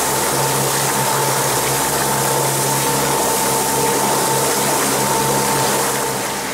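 Water rushing and spraying along the hull of a 17.5-foot Arima Sea Chaser running at speed, a loud steady hiss, with the boat's engine humming steadily underneath.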